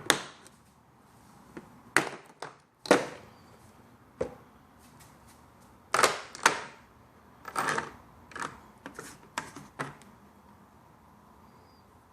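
A plastic socket-set case and its tools being handled: about ten sharp plastic clicks and clacks at irregular intervals, the loudest near the start and around two, three and six seconds in.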